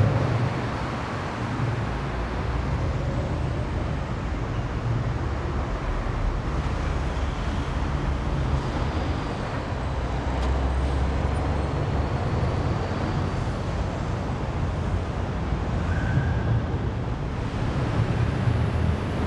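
Steady low rumble of motorway traffic on the bridge overhead, heard from underneath it.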